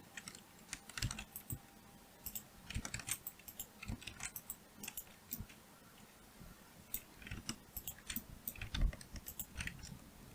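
Computer keyboard and mouse clicks: scattered, irregular keystrokes in small clusters as someone works at a computer.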